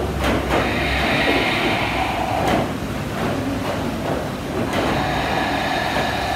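Slow, audible ujjayi breaths drawn through the throat while holding downward dog: a long hissing breath, a softer one, then another hissing breath beginning near the end, over a low steady rumble.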